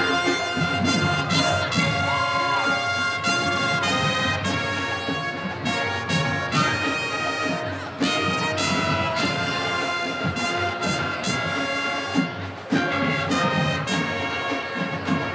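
Brass band music, with trumpets and trombones playing sustained notes.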